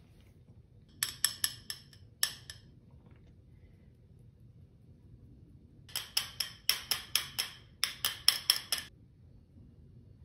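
Small fine-mesh metal sieve tapped in quick runs of light clinks to shake matcha powder through: a short run about a second in, then a longer run from about six to nine seconds in.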